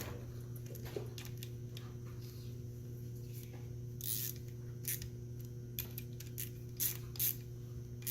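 Irregular sharp metallic clicks and ticks of hand tools being handled, over a steady low hum.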